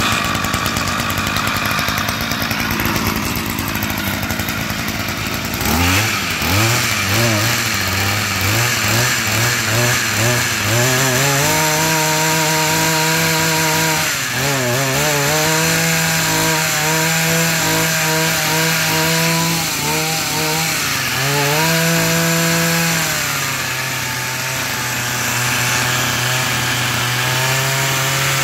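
Komatsu Zenoah brush cutter's small two-stroke engine catching about six seconds in, after a steady buzz, then running unevenly for a few seconds before revving up to a high, steady speed. The speed dips briefly twice and settles to a lower, steady speed for the last few seconds.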